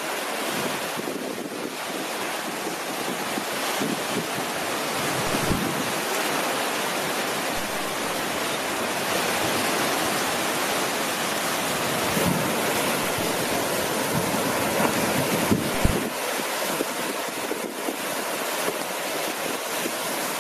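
Ocean surf breaking and washing onto a sandy beach in a steady rush that swells and eases, with wind buffeting the microphone in a couple of brief low thumps.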